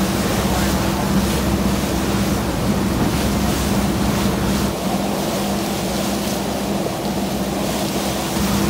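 Boat engine running steadily with a low, even hum, under the rush of wind on the microphone and water washing past the hull.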